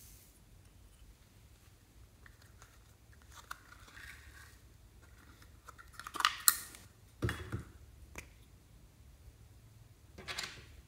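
Hands handling small plastic slime-making items and slime over a glass tray: scattered light clicks and rustles, a cluster of sharp crackles about six seconds in, a dull knock a second later, and a short scrape near the end.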